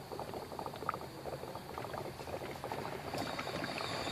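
Faint, irregular crackling and bubbling from hot coolant in a truck's plastic coolant reservoir, the cooling system still warm and under pressure; a sound the owner calls not a bad noise but not a good one either.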